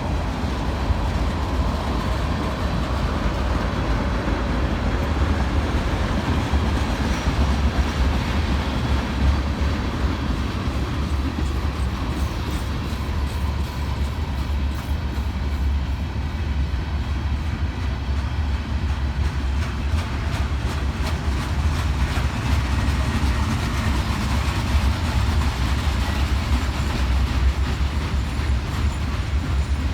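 Freight cars of a mixed freight train rolling past in a steady heavy rumble, with wheels clicking over the rail joints.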